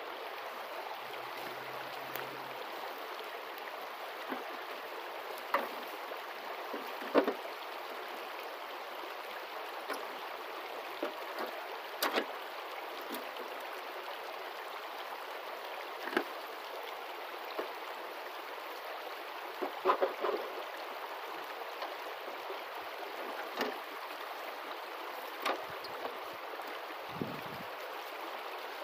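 Creek water rushing steadily, with a dozen or so short sharp knocks scattered through it as an aluminium high-banker sluice is set up on the bank.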